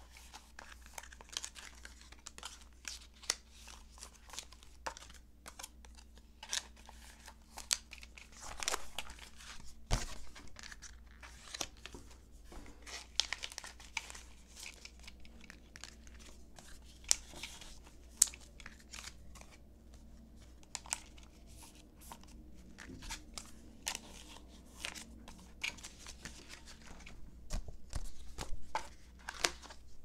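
Clear plastic binder pocket pages crinkling and rustling as business cards are slid into the sleeves and handled, an irregular run of short crackles with a few sharper clicks.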